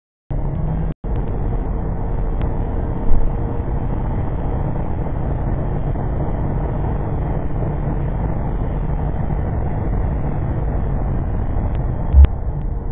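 Steady rumble of tyre, road and wind noise from a Skoda Yeti 4x4 CR140 diesel travelling at speed on a wet track, heard through a camera mounted on the car's rear. The sound cuts out briefly twice in the first second, and there are sharp knocks about three seconds in and near the end.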